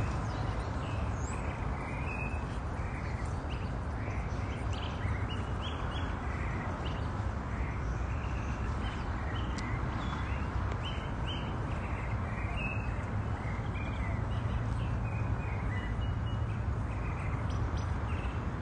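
Small birds chirping over and over against a steady low rumble of outdoor background noise.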